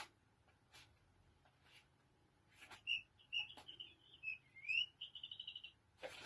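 Electronic mouse-squeak sound of an interactive cat toy: a run of high squeaks and chirps about halfway through, with one rising squeak and then a fast trill, among a few short knocks.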